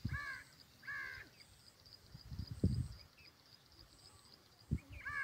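A crow cawing twice, about a second apart, with another caw starting right at the end, over irregular low gusts of wind buffeting the microphone.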